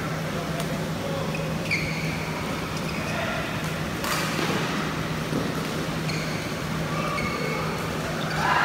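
Badminton hall ambience with a steady low hum. A few short, high squeaks come from players' shoes on the court mat, and there is one sharp knock about four seconds in.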